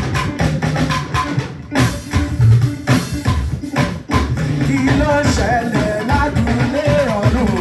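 Church worship music with drums and guitar. A voice starts singing about five seconds in.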